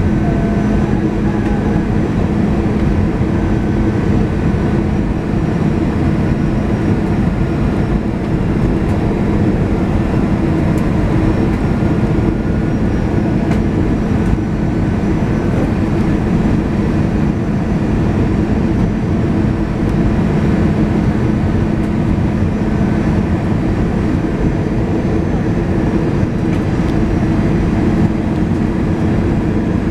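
Steady cabin noise inside an Airbus A320 on final approach: engine and airflow rumble with a constant low hum.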